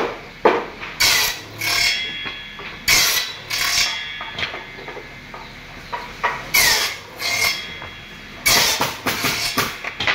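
Wooden pallet boards scraping across a steel table top and clacking against each other as they are handled and stacked. The sounds come in short bursts, about a dozen in all, with a quieter stretch in the middle.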